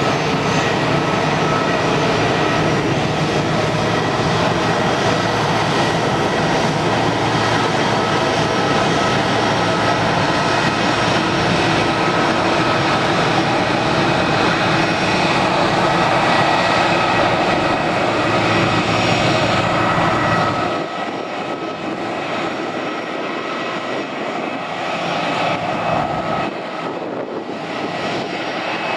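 Cessna Citation Latitude's twin turbofan engines running at low power with a steady high whine over a broad rush of jet noise. A low rumble underneath drops away about two-thirds of the way through, leaving the whine a little quieter.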